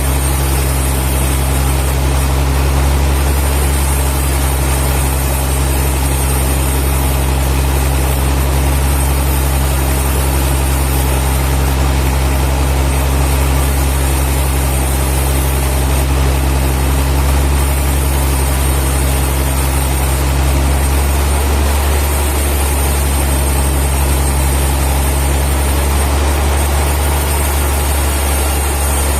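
Heavy sawmill machinery running steadily with a deep, engine-like hum. Some of its higher tones drop away about two-thirds of the way through.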